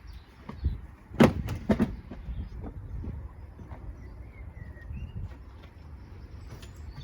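Plastic engine cover of a BMW F10/F11 being pried up off its mounts, with two sharp pops about half a second apart as the clips let go, then handling rattles of the loose cover.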